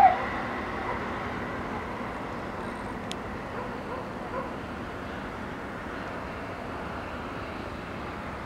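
Steady outdoor background noise with no clear source, with one short, loud sound right at the start and a faint click about three seconds in.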